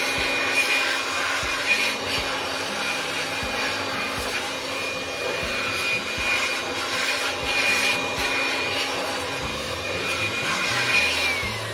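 Handheld air blower running steadily with a rushing hiss and a high whine, blowing water off a freshly washed engine bay. Near the end it is switched off and the whine falls in pitch as the motor spins down.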